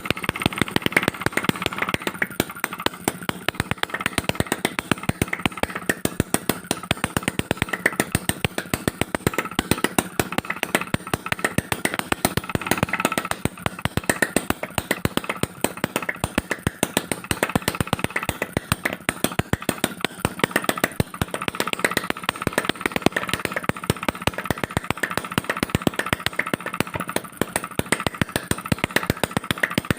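Homemade two-stroke petrol engine converted from a refrigerator compressor, running steadily with a rapid, even stream of firing pops. Its spark comes from an electric stove-lighter igniter.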